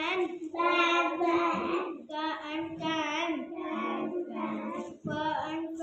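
Young children chanting short-'a' phonics words aloud in a sing-song chorus, in a string of short phrases.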